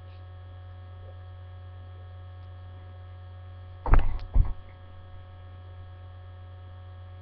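Steady electrical mains hum in the recording, broken about four seconds in by two loud thumps half a second apart.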